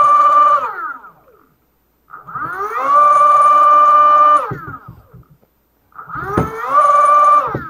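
Electric go-kart motor spinning free on a no-load bench test, driven through its controller by a lever throttle: a whine that rises in pitch, holds a steady tone, then winds down, three times over.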